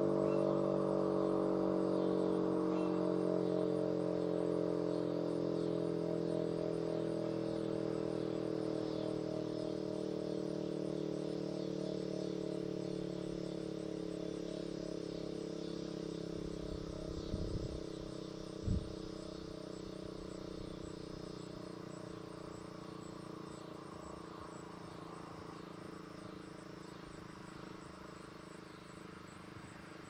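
Federal Signal Model 5A fire siren winding down after being switched off, its stacked tones slowly falling in pitch and fading. Two short knocks come about two thirds of the way through.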